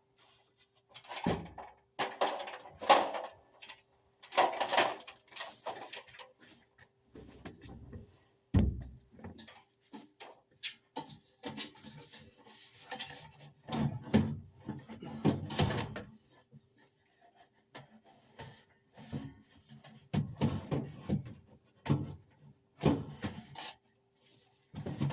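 Irregular sheet-metal knocks, clunks and scrapes as a furnace blower assembly is lifted and slid into the cabinet, with one heavy low thump about eight seconds in.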